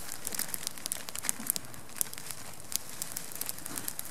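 Small campfire of dry twigs and branches crackling, with sharp, irregular pops.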